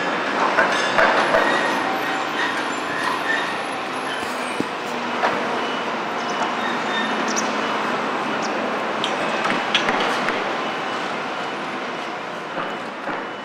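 Construction-site din: a steady mechanical rumble of machinery with scattered metallic clanks and clicks.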